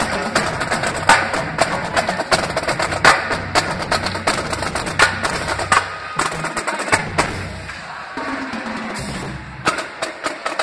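Marching drumline, snare drums and bass drums, playing a cadence of rapid sharp strikes over deep bass-drum beats. The drumming thins out about eight seconds in, then a few sharp hits come near the end.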